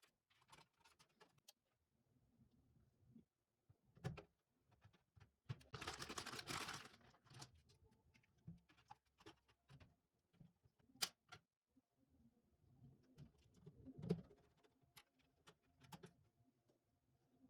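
Faint scattered clicks and taps, as of small hard objects being handled, with a brief rustling hiss about six seconds in and a few sharper knocks.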